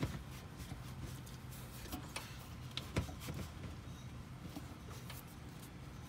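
Scattered light metallic knocks and clicks from a hand working the front sway bar and end link of a 2008 Honda Odyssey, checking for play. The sharpest knocks come right at the start and about three seconds in. The owner suspects a worn sway bar end link behind the clunk heard when turning.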